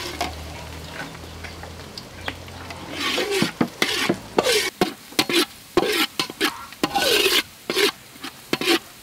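Metal spatula scraping and stirring minced garlic around a wok as it sizzles in hot oil. The scraping strokes come quick and repeated from about three seconds in.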